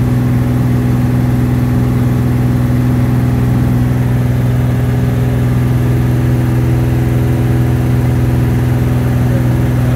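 Small piston aircraft engine and propeller running at a steady power setting in flight, heard from inside the cockpit: an even, unchanging drone with a strong low hum.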